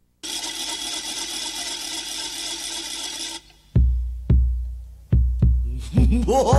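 A wooden matraca ratchet rattles steadily for about three seconds and stops. Heavy bombo drum strikes follow, about six in irregular rhythm, and a brass band enters near the end: the opening of a morenada.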